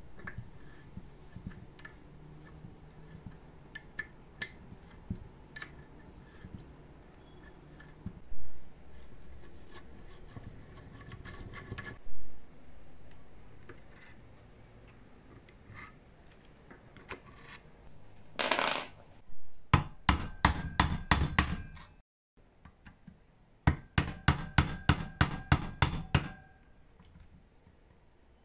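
Metal tools clinking and knocking on metal parts, then rapid hammer blows on metal at about five a second, in two runs with a short break between.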